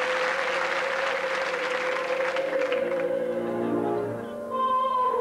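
Applause dying away about three seconds in, over the start of live musical accompaniment: a long held note with steady chords beneath it. A higher held note enters near the end.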